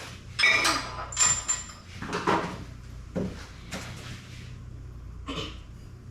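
A handful of short scrapes and clunks of metal engine parts being twisted and handled, some with a brief squeaky ringing.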